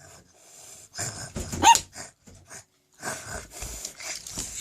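A dog gives a short bark about a second and a half in, followed by breathy noises.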